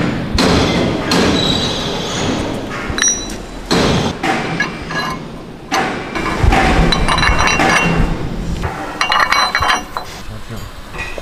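Cast steel blast-wheel blades knocking and clinking against each other and against the wheel as they are handled and slid into the wheel's blade slots. A string of sharp metal knocks, several of them ringing briefly.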